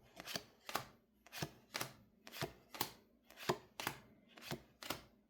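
Trading cards from a freshly opened booster pack being flicked through one at a time, a short sharp click about three times a second.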